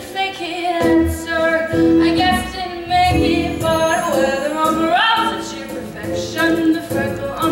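A woman singing a Broadway show tune with musical accompaniment, her voice gliding upward about five seconds in.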